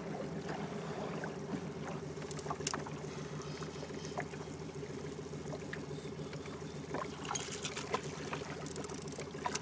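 Outboard motor running steadily at slow trolling speed, a constant low hum, with light splashes of water against the boat's hull.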